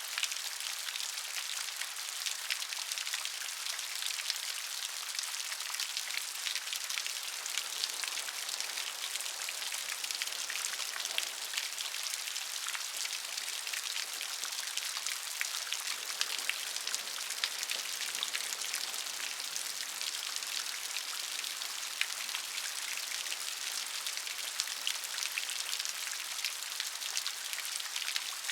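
Steady rain falling, an even hiss of many small drops striking a surface, with close individual drop ticks scattered through it.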